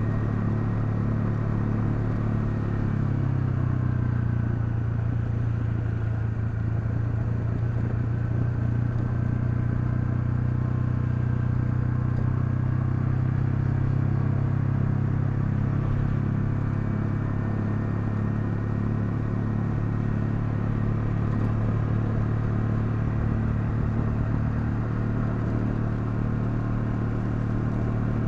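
Honda CL250's single-cylinder engine running steadily while riding at a constant speed. Its note rises slightly about three seconds in.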